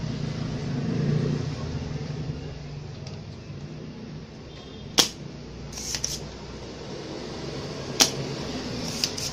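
Spring-loaded desoldering pump (solder sucker) firing with a sharp snap twice, about three seconds apart, sucking molten solder off the pins of the overheating vertical IC on a CRT TV's circuit board. A steady low rumble runs underneath.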